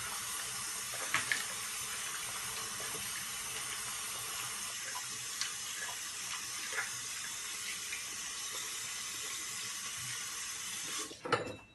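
Bathroom tap running steadily into a sink while someone washes her face, with a few small splashes. The flow stops abruptly near the end with a short knock as it is turned off.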